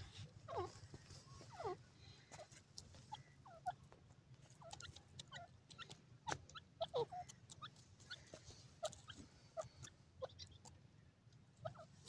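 Grey francolin giving soft, short chirps that fall in pitch, scattered a dozen or so times, among faint scattered clicks.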